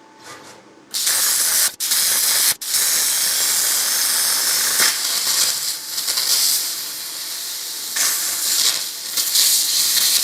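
Plasma torch on a CNC plasma table cutting: a loud, steady hiss that starts about a second in, cuts out twice briefly, then runs on with small rises and dips.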